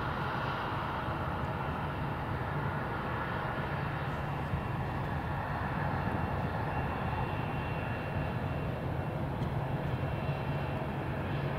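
Jet engines of an Airbus A320-family airliner running as it rolls along the runway after landing: a steady rushing noise with a faint high whine.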